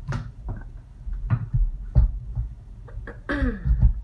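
A few separate light knocks and clicks from kitchen equipment being handled, with a short voice-like sound about three and a half seconds in.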